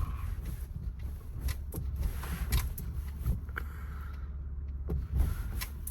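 Inside the cabin of a 2012 Toyota Sienna driving straight: steady low road and engine rumble with several irregular short knocks. The knocks are the noise being chased, which the owner puts down to brakes, struts or other suspension parts, not a CV joint.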